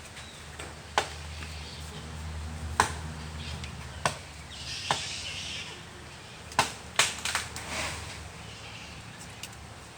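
Irregular sharp chopping knocks of a hand tool striking into garden soil while planting, about a dozen strikes with a brief rustle between them, over a steady low hum.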